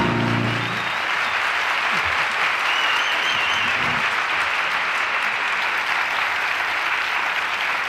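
Audience applauding steadily, the last held note of the song dying away about a second in.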